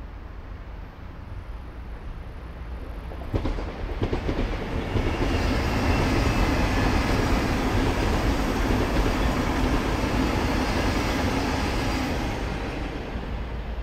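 PKP Intercity ED250 Pendolino high-speed electric train passing at speed: the rush of wheels on rail swells in with a few sharp clacks about three seconds in, holds loudest through the middle, and fades near the end as the last car goes by.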